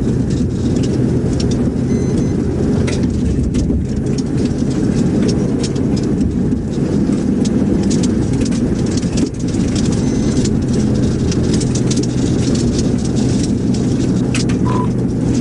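Police cruiser driving at highway speed, about 60 mph: a steady low drone of tyre and engine noise with a hum, light ticks now and then, and a short faint beep near the end.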